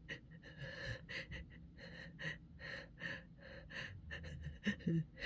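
A person's rapid, shaky gasping in-breaths as another sneeze builds, about four short breaths a second, louder near the end.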